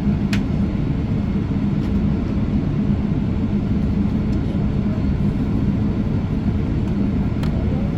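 Steady cabin noise inside a Boeing 777-300ER on the ground before takeoff: a low hum and rumble from its GE90 engines at low power and the airframe, with a few faint clicks.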